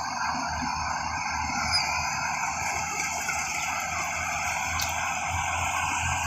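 Yanmar combine harvester running steadily, a continuous mechanical drone over a low engine rumble.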